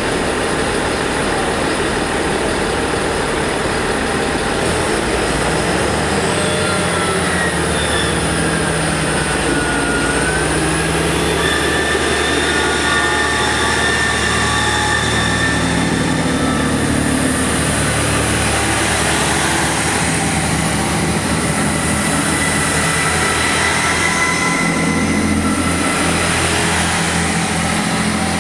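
A moving train's steady running noise on the rails, with high wheel squeal that glides up and down in pitch, strongest in the first half and returning more steadily later.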